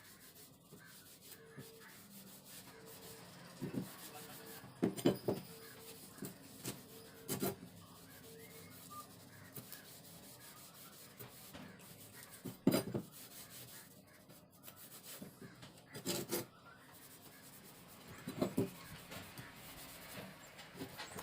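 Faint, intermittent rubbing and scraping by hand on the rusty forged knife, with a handful of short, louder strokes scattered through it.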